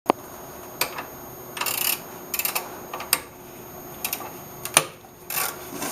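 Hand tools clicking and scraping on metal during O2 sensor replacement: a few sharp clicks and several short rasping scrapes, with a faint steady hum underneath.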